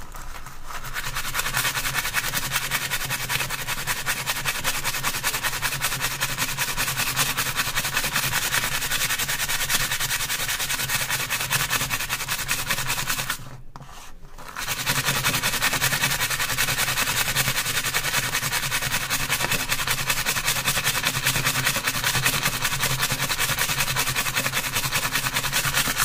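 Stainless-steel wool scrubber rubbed quickly back and forth over a copper-clad PCB, scouring the printer toner off the etched copper tracks. It is a continuous scratchy scrubbing that stops briefly just over halfway and then carries on.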